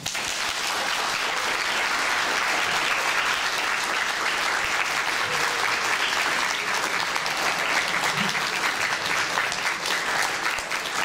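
Audience applauding: many people clapping in a dense, steady patter that starts abruptly and begins to thin out near the end. It is applause greeting the announcement of a winner.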